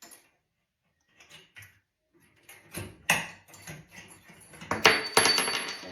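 Clicks and knocks of drain parts being handled and unscrewed under a bathroom sink, ending in a loud rattling clatter for the last second or so.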